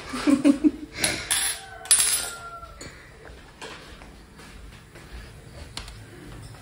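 Tableware clinking at a breakfast table: a few sharp clinks, one left ringing briefly, then lighter small knocks.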